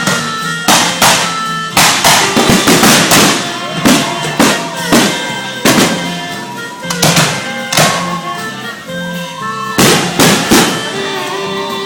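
Fireworks going off in a rapid series of many loud, sharp bangs, some in quick clusters, with music playing throughout.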